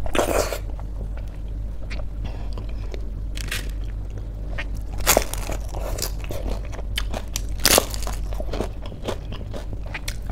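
Close-miked eating: chewing a mouthful of khichdi, then two loud crunches of a crispy fried pakoda being bitten, about five and nearly eight seconds in.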